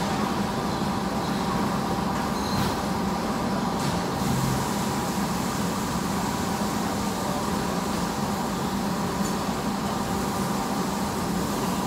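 Steady mechanical hum with a constant low tone and a higher constant whine over an even hiss, unchanging throughout.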